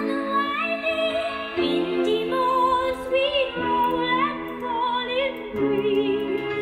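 Classical-style music playing back from a cassette on a Dual CC 5850 RC tape deck: a melody with vibrato over sustained chords that change about every two seconds.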